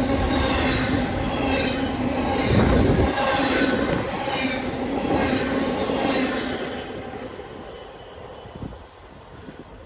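Train rolling past, its wheels squealing and clicking in a steady rhythm about every 0.7 seconds over a low rumble. The rumble drops off about three seconds in, and the whole sound fades away over the last few seconds.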